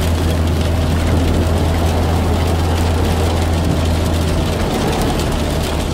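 Steady rushing noise of rain outdoors, with a strong deep rumble held beneath it.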